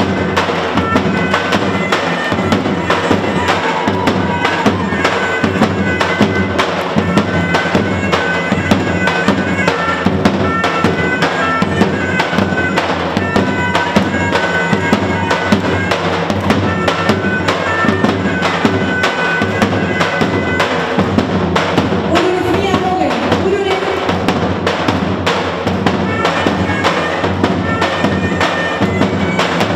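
Live Albanian folk wedding music. Lodra, the large double-headed drums, are beaten in a fast, steady rhythm under a shrill reed wind instrument playing the melody. The wind melody drops out about two-thirds of the way through, and the drumming carries on.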